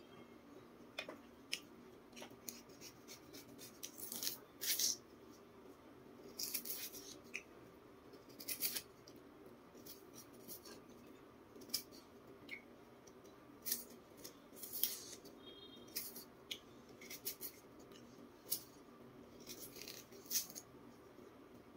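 A small knife and fingers peeling the thin skin off a jicama root: irregular short scraping and tearing sounds, some in quick clusters.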